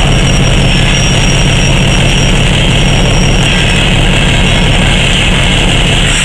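EMD SW1200 switcher's V12 diesel running steadily as it slowly moves loaded hopper cars, with a thin high whine coming and going.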